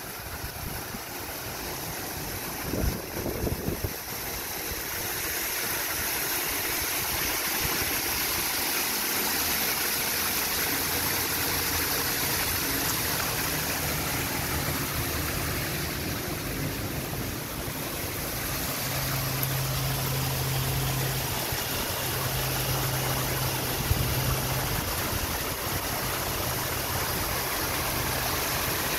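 Solar-powered paddlewheel aerator churning and splashing pond water, a steady rush of spray. The paddlewheel's electric motor hums steadily from about a third of the way in, loudest in the second half, with brief low bumps about three seconds in.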